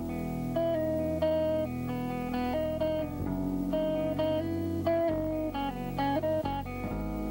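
Film score music: a guitar picks a melody of separate notes over low, held bass notes.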